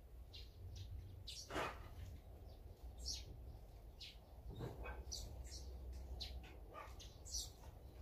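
Small songbirds chirping in short, scattered calls, with a louder call about a second and a half in and another near five seconds, over a steady low rumble.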